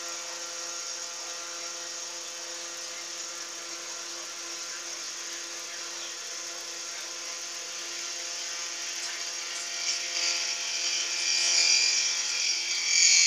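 Small milling machine running steadily with a motor whine. From about ten seconds in, a louder, higher-pitched cutting sound builds as the cutter is fed into the metal.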